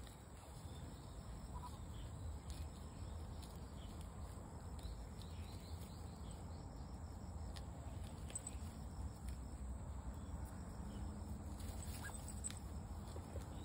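Quiet outdoor background: a steady low rumble, with a few faint chirps and light ticks scattered through it.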